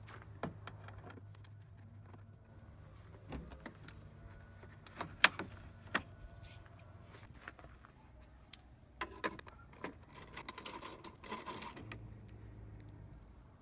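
Scattered sharp clicks and taps of hand tools and hard plastic: a Phillips screwdriver working the screws and a plastic rear trim panel being unclipped and handled on a scooter, with a cluster of quick clicks near the end. A steady low hum sits underneath.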